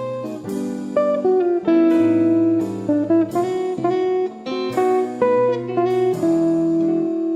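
Background music led by plucked acoustic guitar, notes struck every half second or so.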